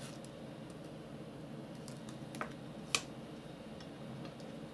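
Faint small clicks and ticks of a paper toy car being handled while its copy-paper spring is wound by turning a wheel, with a sharper click about three seconds in, over steady low background noise.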